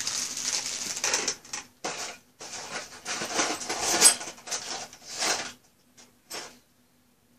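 Clear plastic bag rustling and crinkling as it is picked up and handled, in irregular stretches for about five seconds, then two brief rustles near the end.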